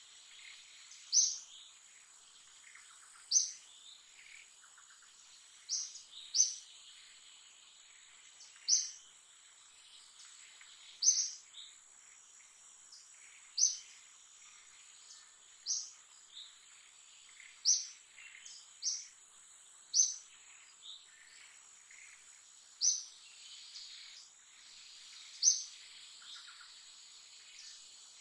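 A bird calling with short, sharp, high chirps about every two seconds, over a steady high-pitched insect drone.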